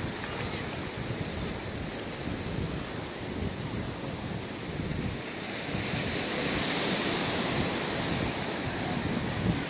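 Surf washing on a beach with wind buffeting the microphone; the wash swells louder about two-thirds of the way through.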